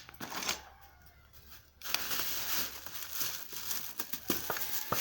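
Crinkling and rustling of something being handled, with scattered small clicks and knocks; it turns much denser and louder about two seconds in.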